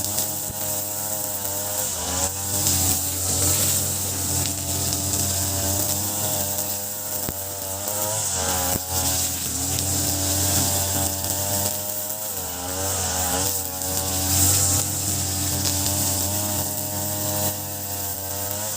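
Two-stroke brush cutter, an Ogawa BG330 33cc fitted with a 43cc carburettor, running at high throttle while cutting grass with trimmer line. Its engine pitch dips briefly a few times and picks back up.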